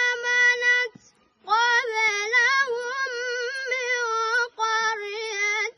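A boy's high voice reciting the Quran in Arabic in a melodic chant. A long held note ends about a second in, and after a short breath come a wavering, ornamented phrase and a shorter one near the end.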